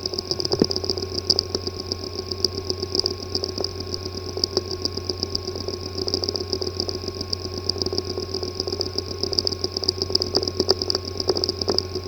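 A hard drive with a physically damaged disk assembly, running with a steady hum and a fluttering high whine, scattered with many small irregular ticks.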